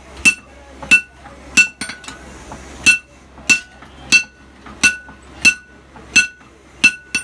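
Blacksmith's hand hammer beating a steel cleaver blade on an anvil: steady blows about every two-thirds of a second, each a sharp clink with a short metallic ring, with a brief pause after the third blow.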